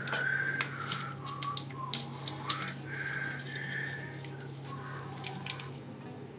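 Green painter's tape being pulled off the roll in several short screechy pulls and wrapped around an auger bit, with crackling clicks from the tape.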